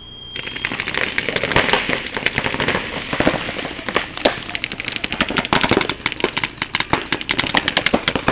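Paintball markers firing rapid strings of shots, many sharp pops a second overlapping as several players shoot at once.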